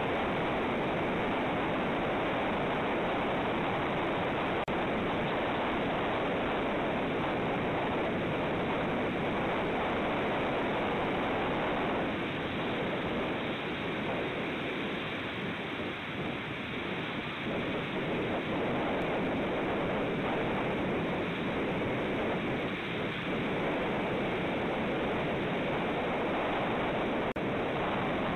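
Steady rushing outdoor noise on an eagle nest camera's microphone above the sea, easing a little about halfway through, with a faint click twice.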